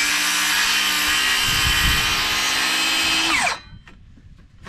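Electric power saw cutting a wooden rafter: the motor runs at full speed with a steady whine for about three and a half seconds. Then it is released and winds down with a falling whine.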